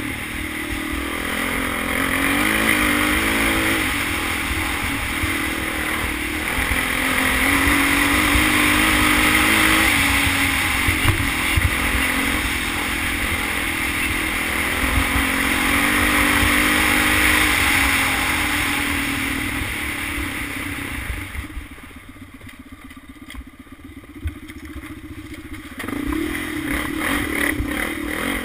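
Honda TRX400EX quad's single-cylinder four-stroke engine running under throttle on a trail ride, its pitch rising and falling as the rider works the throttle. Near the end it drops much quieter for about four seconds, then picks up again.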